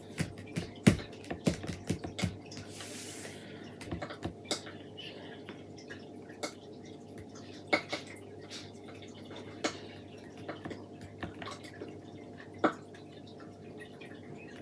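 Scattered light taps and clicks of hands handling a cardboard advent calendar, with a short scraping rustle about three seconds in.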